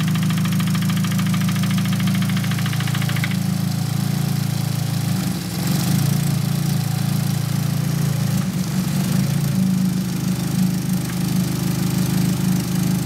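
Nissan SR20DET turbocharged four-cylinder idling with a fast, regular knocking from the cylinder head that stops about three seconds in; the idle note then shifts twice. This intermittent head knock comes with a stumble and vacuum drop, and its cause is unknown, with the lifters freshly bled and the cams and rocker arms already swapped.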